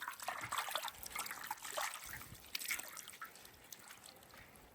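Faint water trickling and dripping, with small scattered clicks, growing quieter towards the end.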